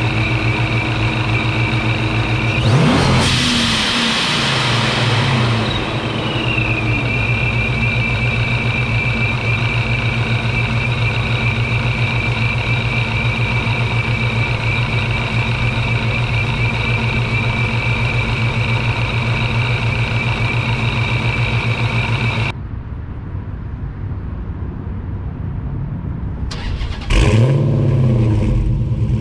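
A 2009 Dodge Challenger SRT8's supercharged 6.6-litre Hemi V8 idling steadily with a high whine. It is revved briefly about three seconds in and again near the end.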